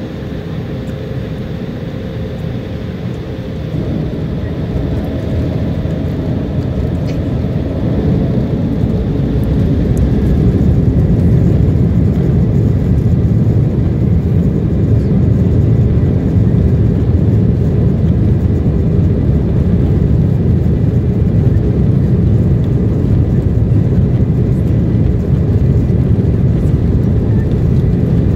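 Jet airliner's engines heard from inside the cabin over the wing, spooling up to takeoff thrust. The sound grows louder over the first ten seconds or so, with a faint whine early on, then settles into a steady loud low rumble of engines and runway roll during the takeoff run.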